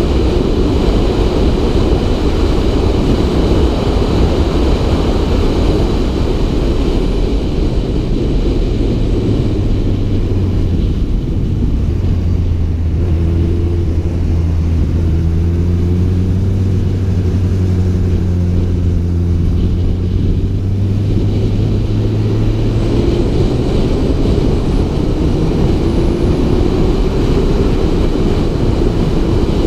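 Wind rushing over a helmet-mounted camera at road speed, over the inline-four engine of a Honda CB600F Hornet motorcycle. In the middle the wind noise drops as the bike slows and the engine's steady low hum comes through. Near the end the wind builds again and the engine note rises as the bike accelerates.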